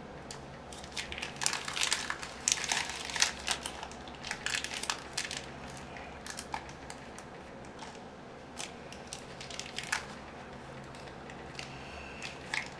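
Foil-wrapped trading-card packs crinkling as a stack of them is handled and squared up by hand, in quick bursts that are densest in the first half and thin out toward the end.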